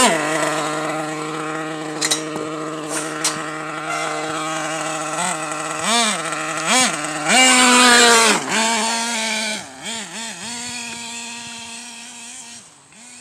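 Small nitro engine of an Ofna RC monster truck running at a steady idle-like note with short throttle blips, then a long high rev about seven seconds in. Afterwards it settles to a steady note and fades as the truck drives away.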